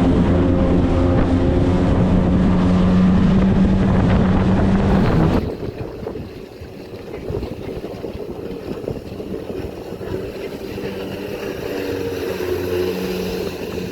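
Jet ski engine running loud and steady for about five seconds. It then cuts off abruptly to a quieter, more distant engine drone, which grows a little stronger near the end.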